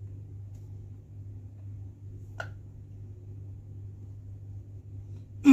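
An Allen key working a bolt at a gaming chair's backrest hinge, giving one light click about two and a half seconds in, over a steady low hum. Right at the end, a short loud sound sweeps sharply down in pitch.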